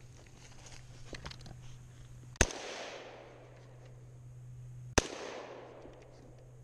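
Two shots from an AK-pattern rifle in 7.62×39mm, about two and a half seconds apart, each a sharp crack followed by a long fading echo.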